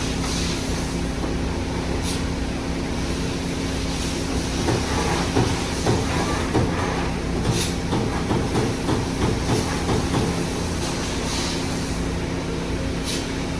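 Amada Vipros 357 Queen CNC turret punch press running: a steady machine hum under a continuous clatter of knocks, with the knocks peaking about twice a second through the middle. Three short sharp hisses of air come at intervals.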